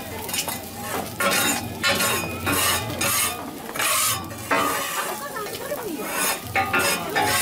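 Okonomiyaki frying on a hot flat-top griddle: sizzling, with metal spatulas scraping and clinking on the hot plate in repeated short scrapes about once a second.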